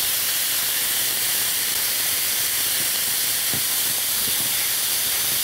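Sliced Italian sausage frying in a nonstick skillet in its own fat, with no oil added: a steady sizzle as a spatula stirs the pieces.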